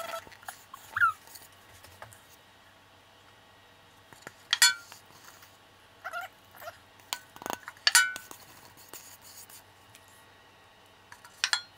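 A silicone spatula scraping and knocking thick brownie batter out of a metal bowl into a glass baking dish, with light clinks against the bowl and glass. A few short high-pitched whines stand out, scattered through the scraping.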